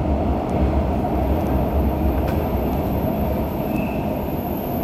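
Alstom metro train running at speed through an underground tunnel, heard from inside the carriage: a steady low rumble, with a thin high whine from about a second in until near the end.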